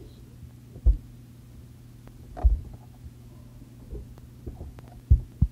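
A steady low hum with a few soft dull thumps: one about a second in, one midway, and two close together near the end.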